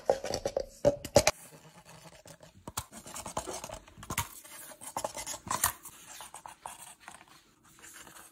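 Walking paper-cup dolls, each driven by a rubber band wound round a C battery inside the cup, shuffling across a cutting mat: a run of irregular scratchy clicks and scrapes.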